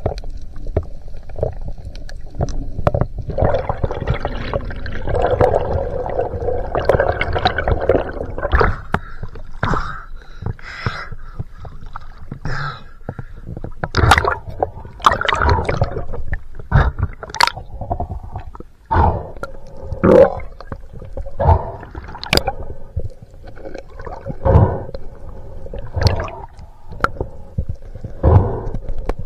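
Water gurgling and sloshing around a swimming spearfisher's camera, underwater and at the surface, with irregular splashes and knocks every second or two.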